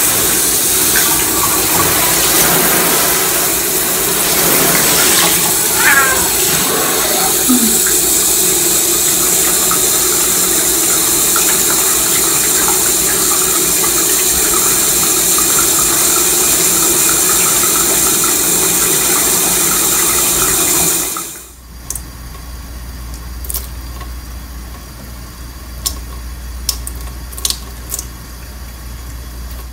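Tap water running steadily into a bathroom sink, stopping suddenly about two-thirds of the way through. After it there is a quieter low hum with a few sharp clicks.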